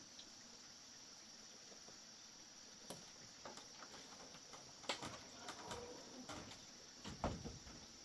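Steady, high-pitched chirring of crickets, with scattered clicks and knocks in the second half, the loudest about five and seven seconds in.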